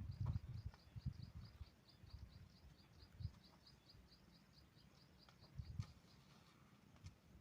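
Faint outdoor ambience: a small animal chirping a rapid, evenly repeated high note, about five chirps a second, that stops shortly before the end. Low dull thuds come at the start and again near the end.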